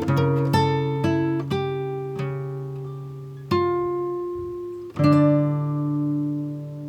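Background music: a plucked acoustic guitar playing slow, ringing chords and single notes that each fade away.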